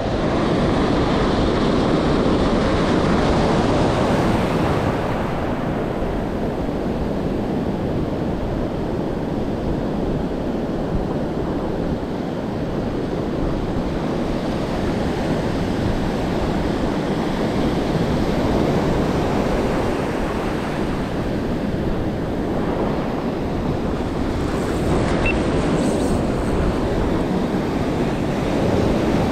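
Ocean surf breaking and washing over shallow sand, a steady rushing wash, with wind buffeting the microphone.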